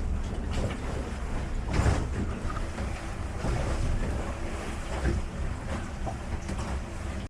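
Wind buffeting the microphone on a sailboat under way, with water rushing along the hull and gusts surging now and then.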